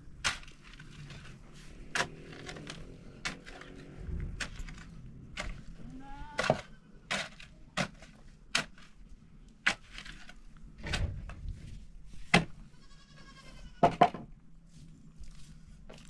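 A steel pick striking rocky soil and stone, a sharp knock roughly once a second. Livestock bleat twice in the background.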